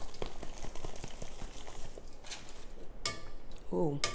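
Metal spoon scraping and chipping at a hardened block of cornstarch in its box: a run of small irregular crunching ticks, with a few louder scrapes near the end and a brief hum from her voice just before the end.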